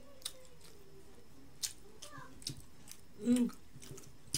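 Close-miked mouth sounds of a person chewing: scattered wet clicks and lip smacks, with a brief hummed vocal sound a little past three seconds in.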